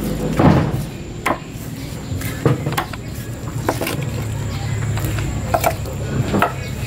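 Large kitchen knife chopping through a dorado (mahi-mahi) fillet and knocking on a thick wooden chopping block: irregular single knocks, about eight in all, over a steady low hum.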